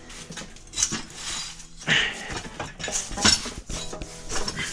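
Steel tire spoons clinking and scraping against the wheel rim as a motorcycle tire bead is levered on by hand, in several sharp metallic strikes.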